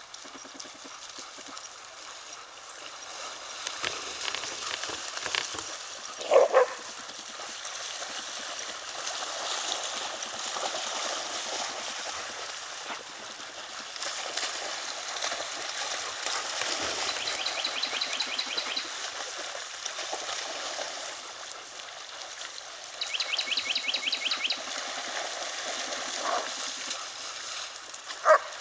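A pack of dogs splashing and wading through shallow pond water, with a dog giving two short, sharp barks, one early and one near the end. Two brief bursts of rapid high-pitched ticking sound in the middle.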